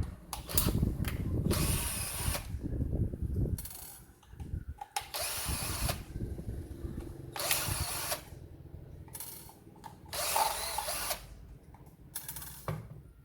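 Cordless drill/driver run in short bursts, about four runs of under a second each, while the case of a small 21 V drill battery pack is being opened.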